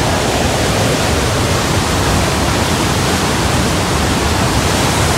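Fast-flowing river rushing over rocky rapids: a loud, steady rush of water.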